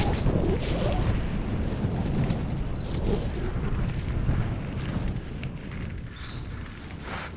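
Wind buffeting the microphone and tyres rumbling over a dirt trail as a mountain bike rolls downhill, with scattered clicks and rattles from the bike. The noise eases off over the last couple of seconds as the bike slows.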